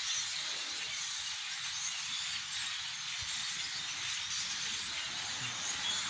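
Continuous dense chatter of a huge flock of thousands of birds calling at once, the many small calls blending into a steady hiss.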